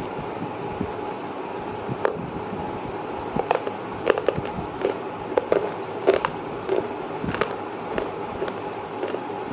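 Close-miked chewing of crunchy food: irregular crisp crunches, thickest in the middle of the stretch, over a steady background hiss.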